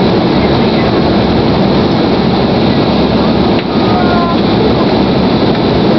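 Steady loud cabin noise inside an Embraer 190 airliner in flight on approach: the hum of its twin GE CF34 turbofan engines mixed with the rush of air past the fuselage. The level drops briefly about three and a half seconds in.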